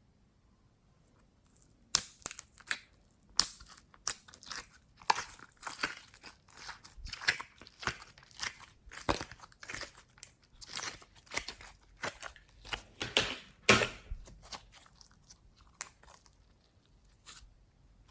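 Glossy slime being squished, folded and stretched by hand, giving irregular sticky crackles and pops. The crackling starts about two seconds in and thins out near the end.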